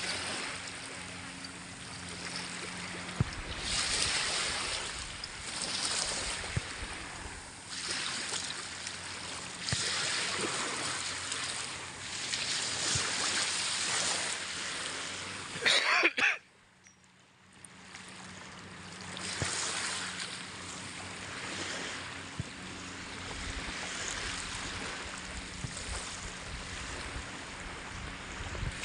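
Small waves washing onto a shallow sandy shore, the hiss swelling and fading every couple of seconds, with faint distant voices. About halfway through comes a brief loud rush, followed by a second or two of near quiet.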